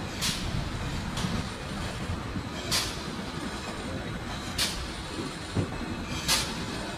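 Steam-locomotive sound for a GWR 57XX 0-6-0 pannier tank: a steady rumbling hiss broken by sharp short knocks at uneven intervals, about one to two seconds apart.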